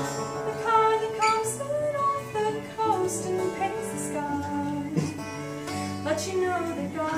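A woman singing a song, accompanied by a man playing an acoustic guitar.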